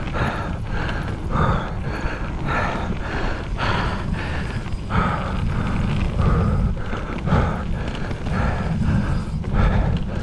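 A mountain bike descending a rough downhill trail at race speed: uneven mechanical clattering and rattling of the bike over the rough ground, several knocks a second, over a steady low rumble of wind and tyres on the camera microphone.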